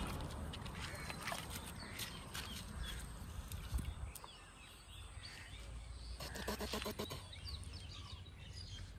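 An animal calls once, about six seconds in, in a pitched, pulsing call that lasts under a second. Light clicks and knocks come in the first few seconds, and faint bird chirps come near the end.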